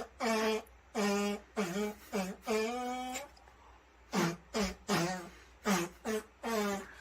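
A voice making a series of about a dozen short, pitched, wordless calls, each bending in pitch, with a brief pause midway.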